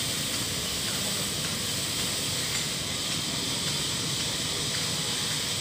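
Steady, even hiss, strongest in the high range, with no distinct events.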